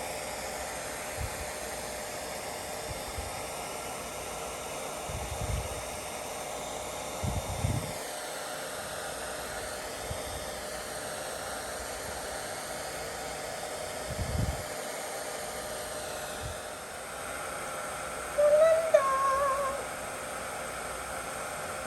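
Hair dryer running steadily as a hiss-like blowing noise, drying damp kittens after their bath, with a few soft low bumps. Near the end a kitten gives a short, high mew.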